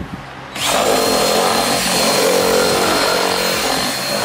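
Cordless drill boring out a mounting hole in a plastic headlight fairing, enlarging it to fit the bolts. After a brief pause at the start it spins back up with a rising whine about half a second in, then runs steadily with a high motor whine.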